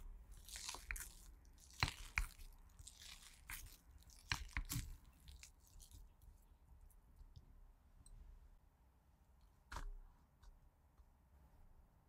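Boiled potatoes being mashed with a stainless-steel potato masher in a glass bowl: soft squishing with sharp clicks as the masher strikes the glass, over the first five seconds or so. Then it goes quieter, with a single knock later on.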